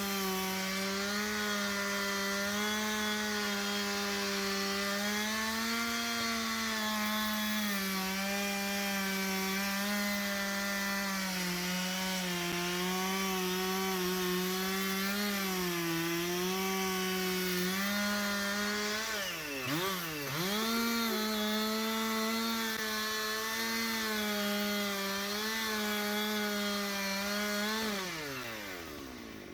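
Husqvarna 371 XP two-stroke chainsaw running at full throttle, cutting through wood. About two-thirds of the way in, it bogs down sharply in the cut and picks back up. Near the end the revs fall away as the throttle is released.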